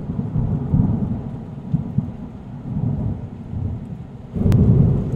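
Thunder rumbling and rolling, swelling again about four and a half seconds in with a single sharp crack.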